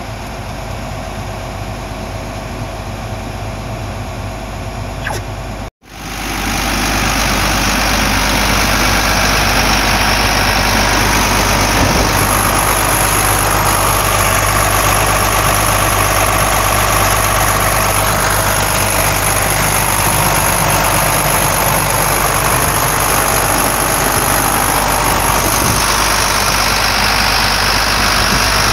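Iveco 10.3 L six-cylinder turbo diesel engine of a New Holland CR9070 combine idling steadily. For the first six seconds it is heard more quietly from the cab. After a brief cut it is louder and close up at the engine.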